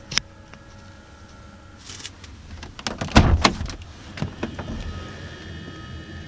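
A van door being opened: a sharp latch click, then a clatter of knocks and rattles from the door mechanism about three seconds in.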